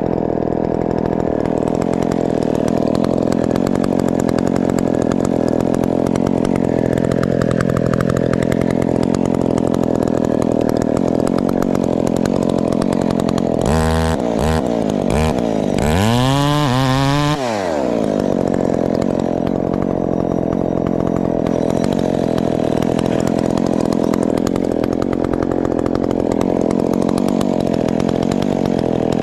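Modified Husqvarna 372 XP two-stroke chainsaw running at full throttle under load while cutting wood. About halfway through it blips the throttle a few times and revs up and back down, then settles back into the steady cut.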